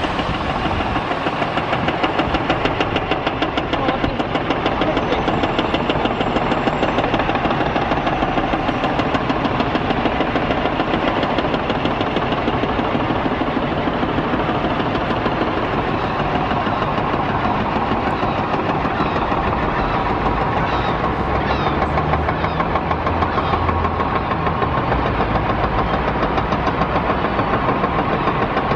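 Steady din of city traffic and construction machinery, with a rapid, even pulsing in loudness and a faint steady tone joining in the second half.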